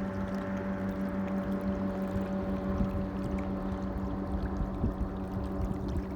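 Gentle sea waves lapping, with a steady low hum running underneath and a few soft thumps of water.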